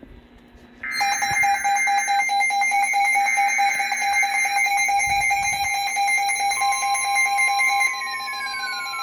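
NOAA Weather Radio activation for a new severe thunderstorm warning: two short buzzy SAME header data bursts, with an electronic receiver alarm beeping steadily over them. About two-thirds through, a steady 1050 Hz warning alarm tone begins, and near the end one of the tones slides down in pitch.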